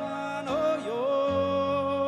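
Background song: a voice singing a held, sliding melody over sustained instrumental chords and a bass line.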